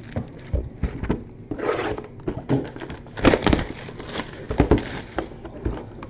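Baseball card packs and cards being handled at a table: irregular crinkling and rustling of wrappers and cardboard, with soft knocks.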